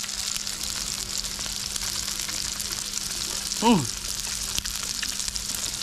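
Steady sizzling and crackling of giant octopus tentacle pieces cooking on a barbecue grill. About two-thirds of the way through, the eater gives one short vocal sound that falls in pitch.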